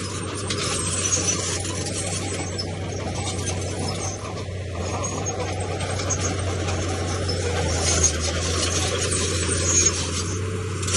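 Komatsu D31P bulldozer's diesel engine running steadily, with a continuous scraping and clatter of steel tracks and stone being pushed.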